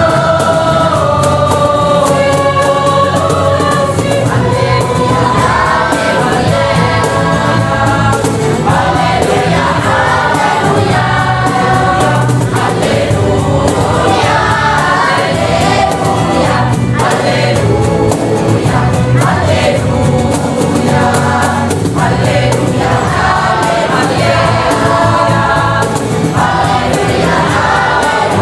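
Mixed parish choir of girls, women and men singing a sacred song, accompanied by strummed acoustic guitars and violin.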